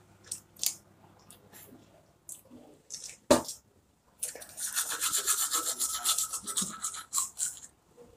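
Toothbrush scrubbing against teeth in quick back-and-forth strokes, starting about halfway through and lasting about three and a half seconds. A few light clicks come before it, with one sharp knock about three seconds in.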